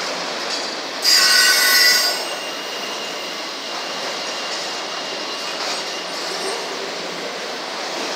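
Autorack freight cars rolling past on steel wheels, a steady rushing clatter. About a second in comes a loud, high-pitched squeal of wheels on the rail lasting about a second, and a fainter squeal tone lingers for a few seconds after.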